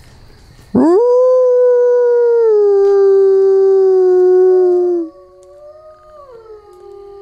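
Wolves howling in chorus. One loud howl sweeps up sharply about a second in, holds steady with a slight drop in pitch, and stops about five seconds in, while other wolves keep howling more quietly at different pitches. The pack howls like this to call back people walking away from the enclosure.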